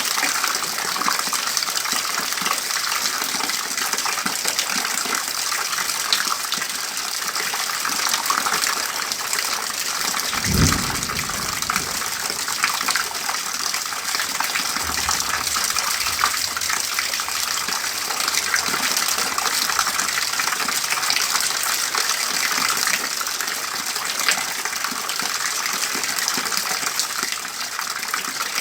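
Rainwater gushing from a roof gutter and splashing into an overflowing bucket, a steady, dense splashing that carries on without break. A brief low thump sounds about ten seconds in.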